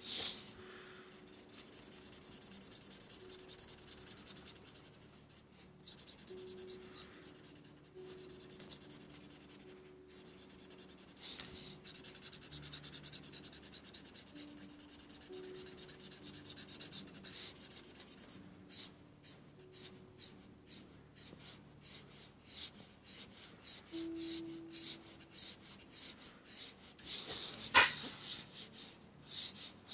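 Marker nib rubbing across smooth paper while colouring in. Long strokes give way to quick, repeated back-and-forth strokes, several a second, from about two thirds of the way in, with one louder scrape near the end.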